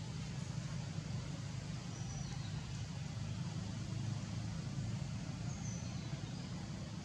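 Steady low rumble with hiss of outdoor background noise, with a few faint, brief high chirps about two seconds in and again near six seconds.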